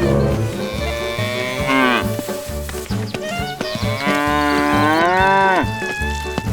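Cow mooing: two long drawn-out calls, each dropping in pitch as it ends, over background music with a steady low beat.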